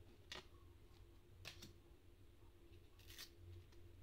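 Glossy oracle cards being handled and flipped, giving three faint brief swishes of card against card, over a low steady hum.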